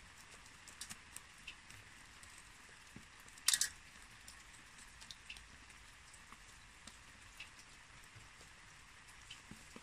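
A wooden stick poking and scratching through the soil of a young red pine's root ball, with small crumbs of soil pattering onto an enamel plate. The sounds are faint scattered ticks and crackles, with one louder crunch about three and a half seconds in.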